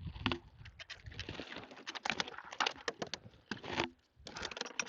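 A run of irregular sharp clicks and light knocks, several a second, with a short pause about four seconds in.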